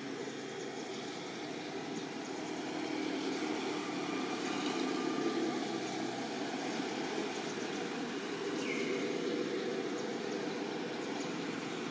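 Steady outdoor background noise, a low rumbling hiss with no clear single source, with a brief faint high squeak near nine seconds in.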